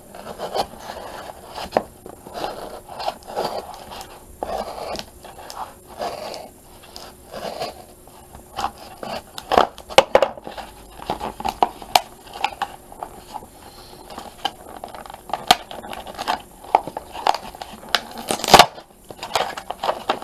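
Packaging being handled and torn open by hand to get the darts out: crinkling, scraping and many small clicks, with one loud snap near the end.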